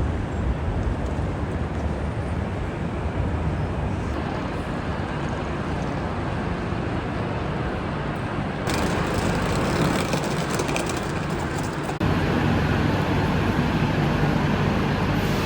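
Steady rumble and hum of a passenger train running, heard from inside the carriage. It changes abruptly twice, about nine and twelve seconds in.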